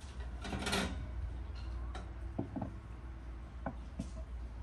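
Cookware being handled: a short scraping rustle about half a second in, then a few light knocks and clicks as a plate and a metal bowl are set down on a wooden table.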